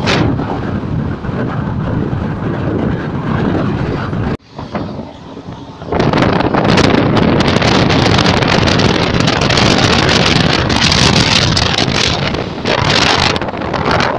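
Moving train heard from an open coach door or window, its running noise mixed with wind buffeting the microphone. The sound cuts off sharply about four seconds in, stays quieter for a second or two, then returns louder with strong wind noise.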